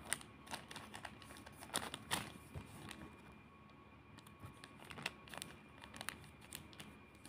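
Thin plastic packaging crinkling and rustling as it is handled, in scattered small crackles and clicks that are loudest in the first couple of seconds.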